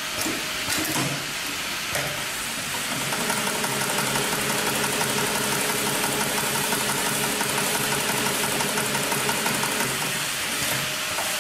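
Industrial automatic pattern sewing machine running, stitching at a fast, even rate while its clamp frame carries the work under the needle. The machine gets a little louder and steadier about three seconds in.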